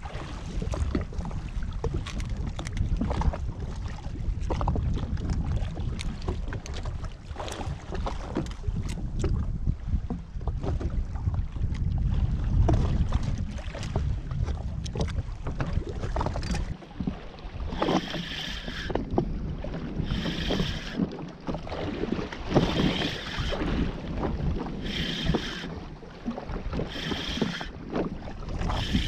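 Wind buffeting the microphone and water slapping against a jet ski's hull at sea, with scattered small knocks. About halfway through the low rumble drops away and a short hiss comes roughly every two seconds.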